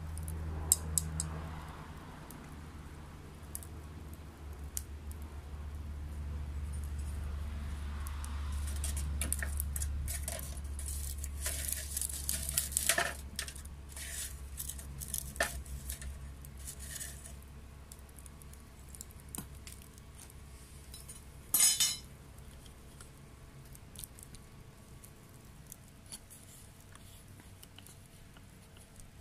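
Wet wood burning in a homemade secondary-combustion wood stove: a steady low roar of the fire with scattered crackles and small pops, thickest around the middle. About 22 seconds in there is one louder, short rattling burst.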